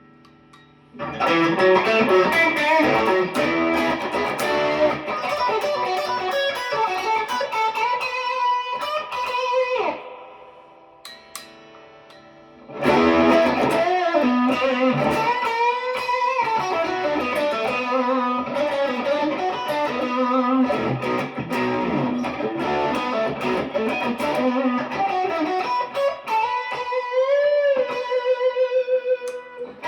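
PRS Special Semi-Hollow electric guitar played as a lead line of single notes with string bends. The playing stops for a couple of seconds about ten seconds in, then resumes, ending on a note bent up and held with vibrato.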